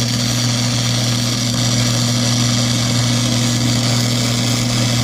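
Mastercraft 110 flux-core wire-feed welder laying a continuous bead along a crack in an exhaust manifold: a steady crackling arc hiss over a low electrical hum, cutting off suddenly at the end as the trigger is released.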